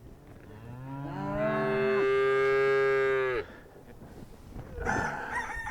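A cow mooing: one long call about three seconds long that rises in pitch and then holds before cutting off. A shorter, higher call follows near the end.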